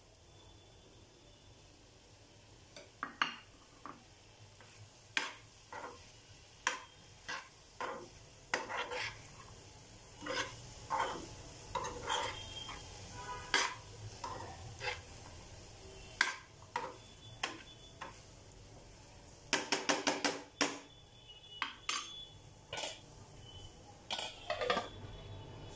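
A spoon stirring potato and pea curry in a non-stick frying pan, giving irregular knocks and scrapes against the pan over a faint sizzle, with a quick run of taps about twenty seconds in. Near the end a stainless steel lid is set on the pan.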